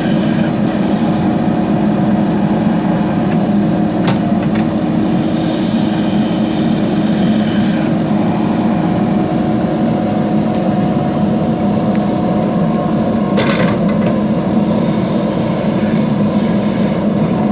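JCB backhoe loader's diesel engine running steadily with a held drone. There is a short, sharper sound about four seconds in and another a few seconds before the end.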